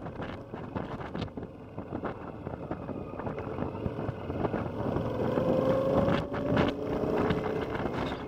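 Honda CX500's liquid-cooled V-twin engine running as the motorcycle rides along, with wind rushing over the microphone. About five seconds in the engine note gets louder and climbs slightly as the bike accelerates.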